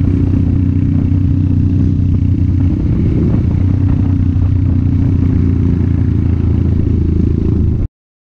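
Dirt bike engine running at a steady cruise, heard from on the bike, with a low steady hum and rumble. It cuts off abruptly near the end.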